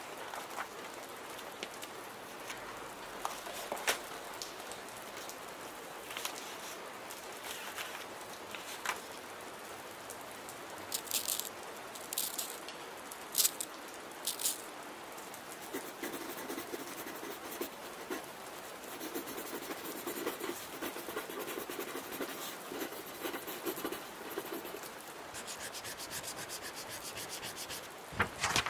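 Pen writing on paper, scratching in short strokes that come thicker in the second half, over a steady hiss of rain.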